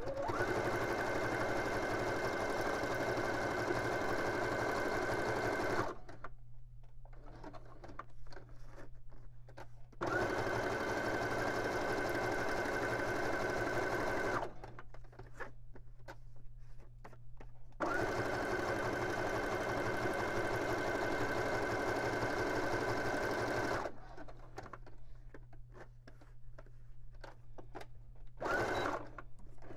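Computerized sewing machine stitching through layered paper card in three steady runs of about four to six seconds each, then one short burst near the end. Between runs the motor stops, and light clicks of the card being handled and repositioned fill the pauses.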